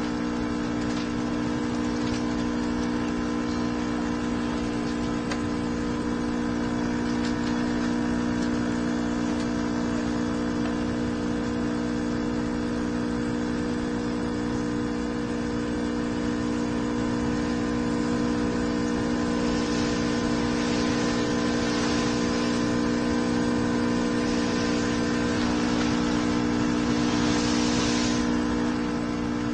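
Coffee machine running with a steady, unchanging hum, with several spells of hissing from about two-thirds of the way through.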